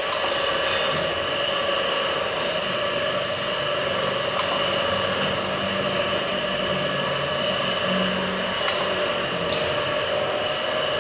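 Liquid packaging machine running with a steady mechanical hum and a few held tones, with a handful of faint, irregular clicks.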